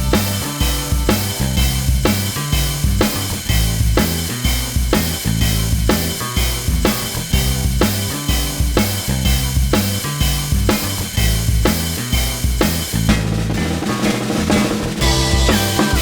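Background music driven by a drum kit, with a steady beat of kick and snare and a pulsing bass line.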